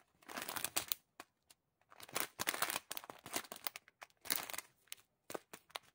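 Small clear plastic bags of diamond-painting drills crinkling as they are handled, in a few short bursts.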